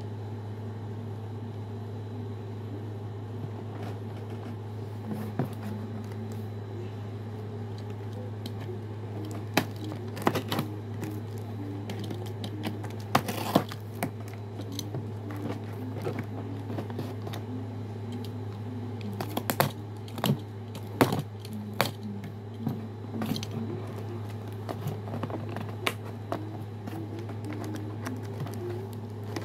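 Toy packaging being handled and worked open: scattered clicks and crinkles, with a brief rustling rip about halfway through, over a steady low hum.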